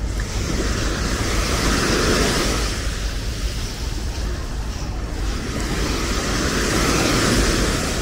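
Small sea waves breaking and washing up a sandy shore, swelling twice, over a low rumble of wind on the microphone.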